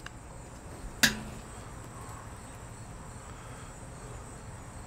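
A single sharp click about a second in, with a brief low ringing after it, over a faint steady background carrying a thin, steady high-pitched tone.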